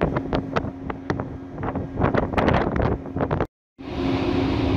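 Wind buffeting the microphone in crackling gusts over a steady low machinery hum from the ship. The sound cuts out for a moment about three and a half seconds in, then comes back as a smoother wind rush over the same hum.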